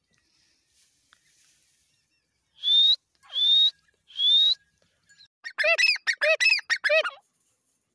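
Grey francolin calling: three clear whistled notes, each rising at the end, then a rapid string of about eight harsh, ringing notes that ends suddenly.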